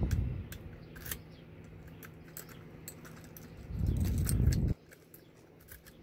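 Small metallic clicks and scrapes as a brass key is worked in and drawn out of a Yale Platinum euro cylinder's keyway. There is a dull handling bump at the start and a longer low rumble of handling near four seconds in.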